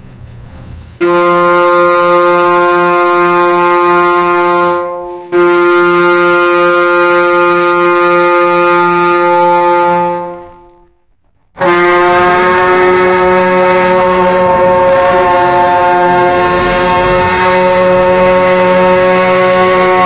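Loud ship's horn blowing steady deep blasts: one starting about a second in, a second straight after that fades out near the middle, then after a brief silence a long unbroken blast.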